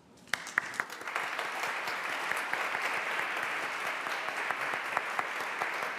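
Applause from many people: a few scattered claps at first, filling out within a second into steady, dense clapping.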